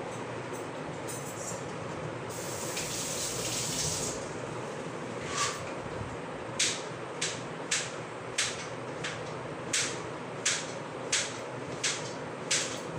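Steady hiss, joined about five seconds in by a run of light, evenly spaced clinks, about one every two-thirds of a second.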